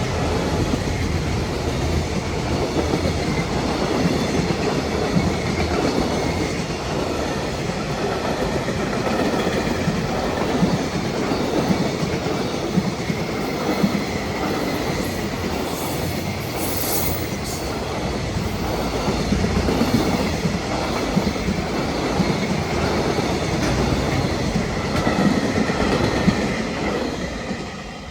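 Freight train's container wagons rolling past at speed, wheels clattering over the rail joints, with a brief high wheel squeal about two-thirds of the way through. The noise falls away near the end as the last wagon passes.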